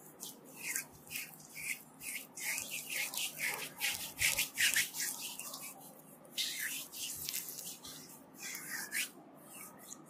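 Hands rubbing and kneading an oiled bare back: quick, irregular swishes of slick skin on skin, thickest in the middle.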